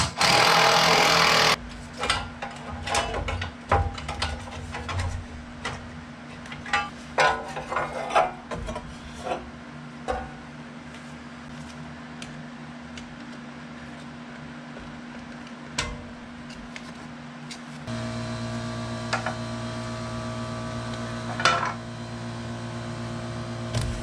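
Scattered metal clanks, clicks and knocks of tools and parts as a sawmill's top belt cover is unfastened and the drive belt worked off, opening with a loud rushing burst of about a second and a half. A steady low hum runs underneath, joined about eighteen seconds in by a louder steady drone.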